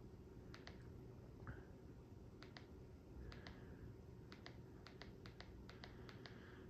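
Faint, quick double clicks of a TV remote's button, pressed about eight times at uneven intervals to step through channels, over a low room hum.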